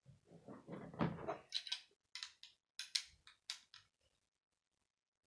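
Plastic Lego pieces being handled and pressed onto a model: soft rustling of the bricks, then a quick series of short sharp plastic clicks about two to four seconds in.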